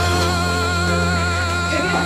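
Music: a long held note with vibrato over a steady low bass.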